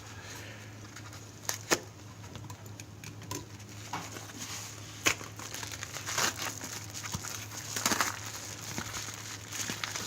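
A shipping package being opened by hand: packaging crinkling and tearing, with scattered sharp clicks and rustles, over a faint steady low hum.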